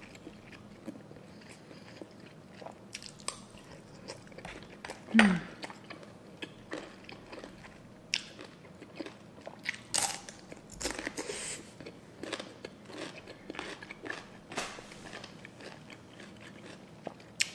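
Close-miked eating: crisp crunching bites and chewing of raw cucumber and green papaya salad, in scattered crunches that come thickest in the second half. A short hummed vocal sound about five seconds in is the loudest moment.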